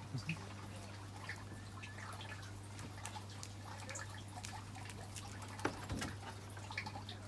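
Light splashing and dripping of water in a plastic tub as a hand moves through it, with one louder splash a little past the middle, over a steady low hum.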